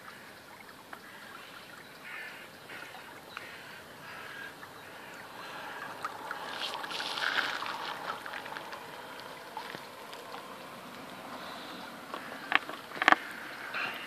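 Small radio-controlled model tug boat running across a lake, its propeller and wash rising to a rushing swell as it passes close about halfway through, then fading as it moves away. A few sharp knocks near the end are the loudest sounds, with short bird calls in the background.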